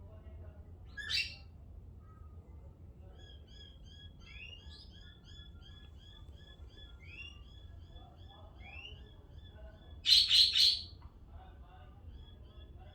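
Small pet birds chirping, a long run of quick short chirps. One loud harsh squawk comes about a second in, and a louder burst of three squawks comes near the end.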